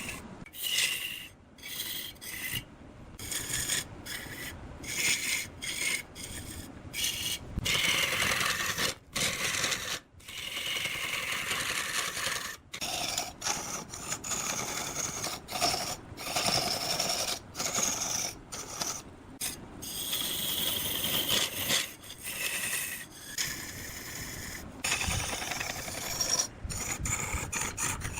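A tool scraping and rasping against wood in irregular strokes, broken by many short pauses.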